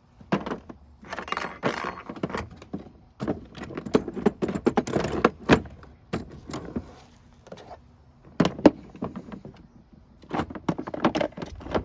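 Metal hand tools and bits clattering and clinking as they are handled and packed away, with irregular knocks and thunks.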